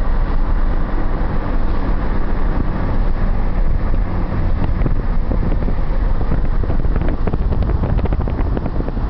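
Steady low rumble of a car driving, engine and road noise mixed with wind on the microphone. A patter of light ticks comes in near the end.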